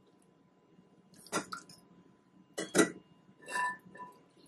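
A stainless-steel canning funnel and a glass mason jar clinking together a few times as the funnel is handled on the jar mouth. One clink, about three and a half seconds in, rings briefly.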